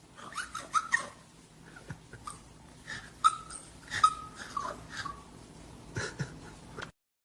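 A dog making a series of short, high-pitched whines and cries, each bending in pitch, that stop abruptly near the end.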